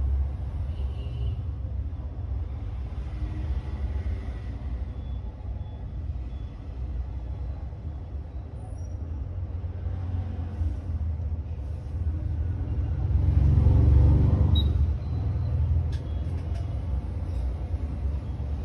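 A steady, loud low rumble, swelling to its loudest about thirteen to fourteen seconds in.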